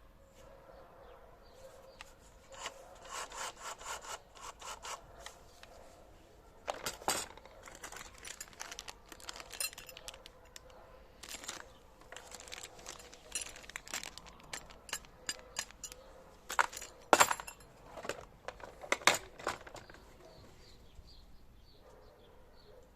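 Handling noises of a cordless drill kit being unpacked: irregular bursts of rubbing, scraping and sharp clicks of packaging and plastic or metal parts, with the loudest clicks in the second half.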